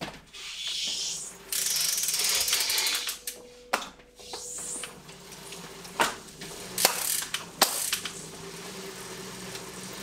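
Road bike on a Wahoo KICKR ROLLR smart roller trainer as the rider mounts and starts pedalling. The rear hub's freewheel ratchets rapidly for a second or two, a few sharp clicks follow, and then the tyre spinning on the trainer's roller settles into a steady low hum at slow speed.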